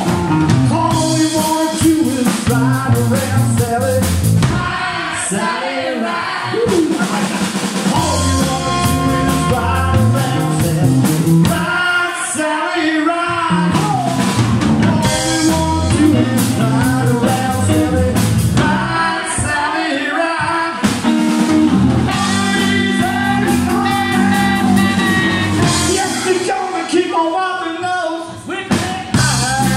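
Live rock-blues band playing: male lead vocals over electric bass, electric guitar and a drum kit.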